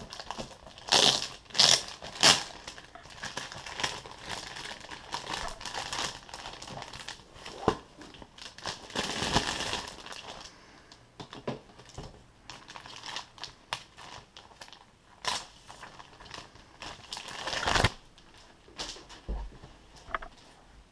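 Plastic shrink wrap being torn and peeled off a cardboard box, crinkling in irregular bursts, loudest about one to two seconds in, with a longer stretch of crackling around the middle.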